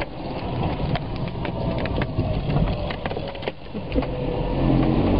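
Inside a moving car's cabin: a low rumble with many sharp crackles and knocks, and a louder knock about four seconds in.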